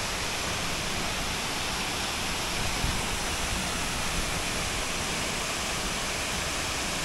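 Waterfall rushing steadily as it pours over a rock ledge into a pool, an even, unbroken noise of falling water.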